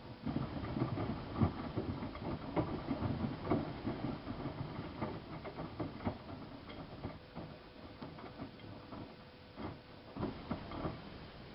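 Miele Softtronic W3657 front-loading washing machine in its wash phase: the drum starts turning just after the start, and the laundry tumbles and splashes with irregular soft knocks and swishes. It eases off, then gives a short burst again near the end, over a faint steady hum.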